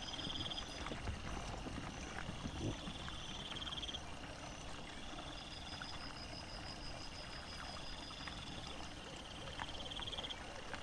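Night insects trilling in repeated high, pulsed bursts about a second long, every couple of seconds, over a low background hiss. Faint soft clicks and rustles come from wild boar and their piglets rooting through leaf litter.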